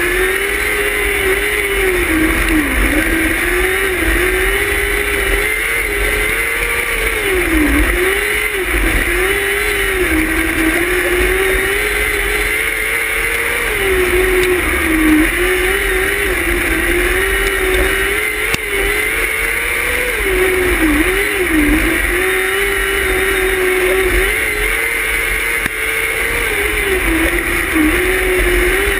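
Non-wing micro sprint's motorcycle engine running hard, heard from on board: the pitch holds high and dips briefly every few seconds as the throttle is lifted for the turns, then climbs back. A steady low rumble runs beneath it.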